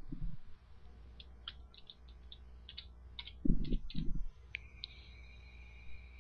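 Typing on a computer keyboard: a quick run of key clicks for about three seconds. Then come two dull low thumps, the loudest sounds, and a faint steady high whine near the end.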